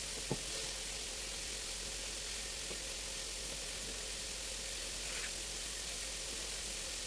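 Food sizzling in a frying pan, a steady even hiss, with a single sharp click about a third of a second in.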